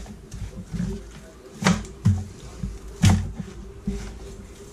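Raw chicken halves being flipped over on a metal sheet pan: a few soft wet thuds of meat landing, with sharp knocks from the pan.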